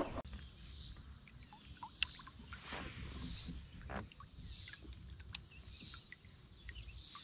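Quiet river ambience from a fishing kayak: a steady high insect drone with pulsing hiss, and a few sharp light clicks and knocks from handling the rod, reel and kayak.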